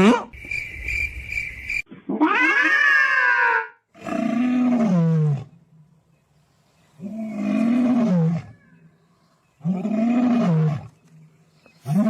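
A cat yowling: one long call falling in pitch, then four long calls that rise and fall, each about a second and a half long. A steady high pulsing tone sounds during the first two seconds.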